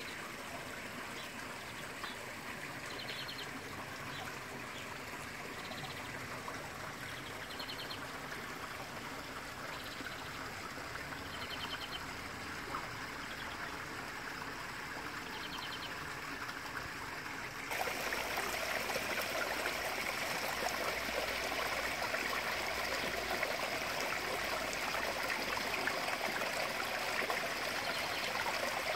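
Water running down a rock-lined garden stream into a pond: a steady splashing trickle that grows louder about two-thirds of the way through. Faint short chirps sound now and then in the first part.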